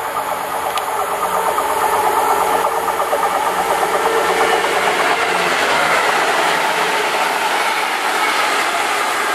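Several Freightliner Class 66 diesel locomotives running coupled together as a light-engine convoy, their two-stroke EMD engines drumming as they approach and pass close by. The sound grows louder over the first couple of seconds, then stays loud with wheel noise on the rails.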